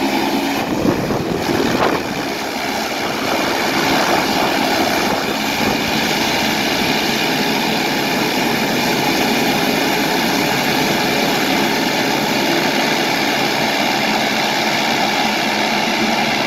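Saab 340's twin General Electric CT7 turboprop engines running as the aircraft taxis away: a steady propeller drone and turbine whine with several high steady tones, swelling over the first few seconds and then holding steady.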